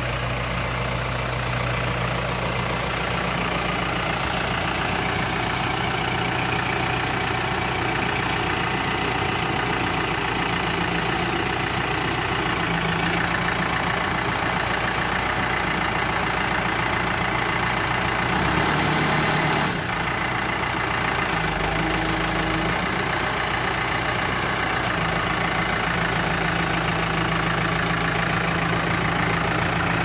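Escorts Digmax II backhoe loader's diesel engine running steadily as the machine moves about, its note shifting briefly about two-thirds of the way through.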